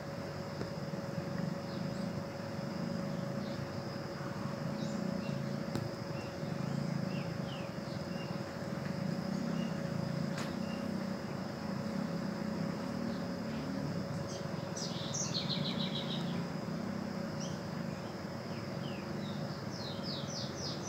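Rainforest ambience: a steady high insect drone over a low rumble, with two short runs of rapid, high-pitched chirps, one about fourteen seconds in and another near the end.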